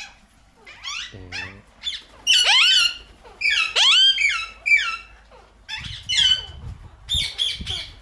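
Alexandrine parakeet squawking: a string of harsh, loud calls with sweeping pitch, the loudest about two to four seconds in. The bird is angry at a person close by.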